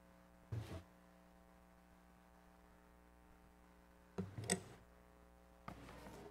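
A steady electrical mains hum in a quiet room, broken by three short bumps: one about half a second in, a sharper one about four seconds in, and one near the end.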